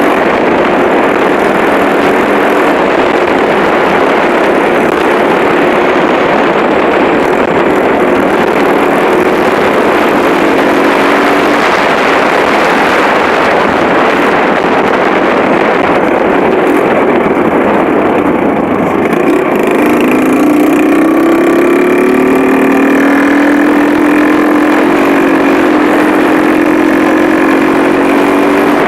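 Motorcycle engine running on the move, over a steady rush of noise. Its pitch shifts and then holds at a new level about two-thirds of the way through.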